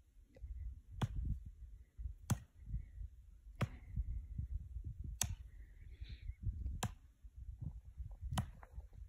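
Axe chopping into a tree, six sharp strikes about a second and a half apart, heard from a distance. Wind rumbles low on the microphone underneath.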